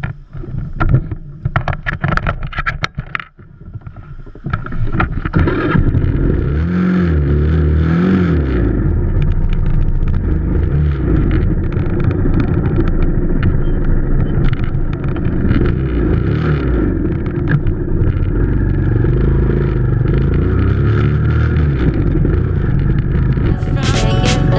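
Motorcycle engine running under way with wind noise on the microphone, its pitch rising and falling with the throttle. It starts about four and a half seconds in, after a few seconds of knocks and clicks.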